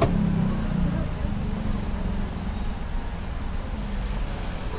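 Steady low rumble of background noise with faint, indistinct voices, strongest in the first second.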